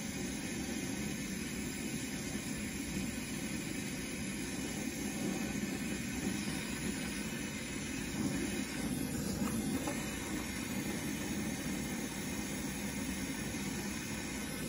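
Brazing torch flame burning with a steady, even rushing noise as a copper refrigerant tube joint on a refrigerator compressor is heated and brazed.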